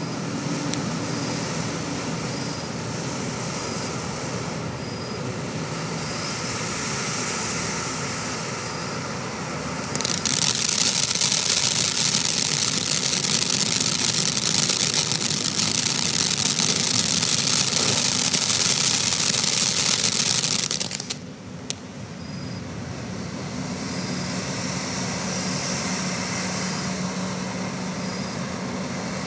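Black Cat Iron Maiden firework fountain spraying sparks with a steady rushing hiss. About ten seconds in it turns suddenly louder and sharper. A little after twenty seconds it drops back to a softer, steady hiss.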